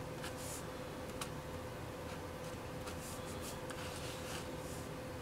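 A pen scratching on paper in short strokes, sketching small symbols and wavy lines, over a faint steady hum.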